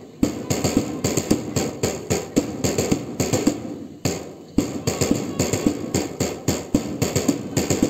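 A dense, irregular run of stamping thuds and knocks from a marching contingent's feet, several impacts a second with a few deeper thumps, pausing briefly about four seconds in.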